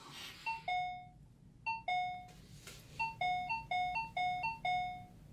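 Two-note electronic doorbell chime, a falling ding-dong, rung again and again. It sounds twice with pauses, then several more times in quick succession from about three seconds in.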